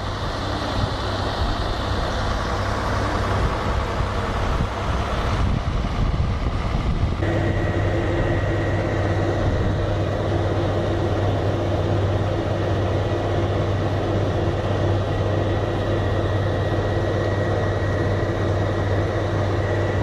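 Heavy diesel engines of a hot-in-place asphalt recycling and paving train running steadily. About seven seconds in the sound changes abruptly, then settles into a steady low hum with a thin high whine above it.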